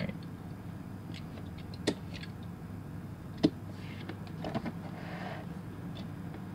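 Handling noises from small diecast model cars on a mat: two sharp clicks, the louder about three and a half seconds in, a few faint ticks, and a short rustle about four seconds in, over a steady low hum.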